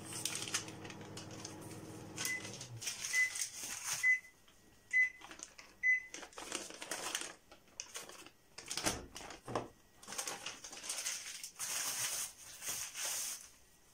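Paper butter wrappers rustling and crinkling in repeated bursts as blocks of butter are unwrapped by hand. In the first few seconds a low steady hum cuts off and an appliance beeps five times, about a second apart.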